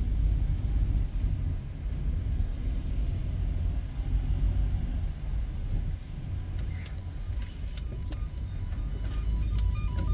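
Car cabin rumble of a car driving slowly, heard from inside the car. In the last few seconds a few sharp clicks and short repeated beeps come in over it.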